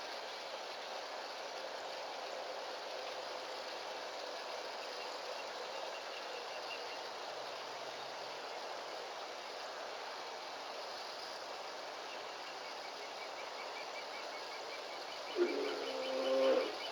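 Steady outdoor background hiss with faint, evenly repeating high chirps, typical of crickets. About a second before the end, a short, low pitched voice or call stands out as the loudest sound.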